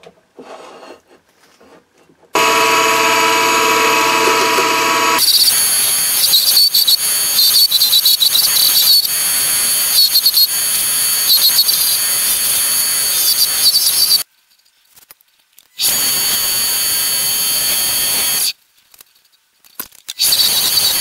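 Benchtop mini wood lathe switching on and running with a steady motor whine, then a turning chisel cutting into the spinning wooden handle blank: a continuous scraping with a high squeal. The cutting breaks off twice for a second or two and resumes.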